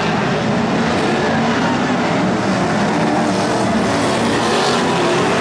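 Several BriSCA F1 stock cars' big V8 engines running hard as the pack races round the shale oval, a dense, steady engine noise.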